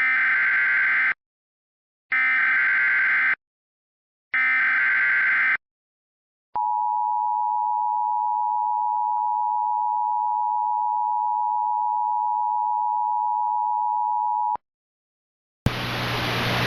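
Emergency Alert System tones: three bursts of SAME header data, each about a second long with a second's gap between them, then the two-tone attention signal held steady for about eight seconds and cut off sharply. Near the end a hiss of radio static begins.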